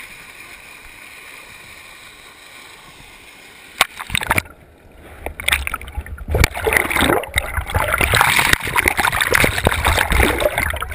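Water rushing steadily along a water slide, then a splash about four seconds in as the rider drops into the splash pool. After that comes loud, muffled churning of water and bubbles heard with the camera underwater.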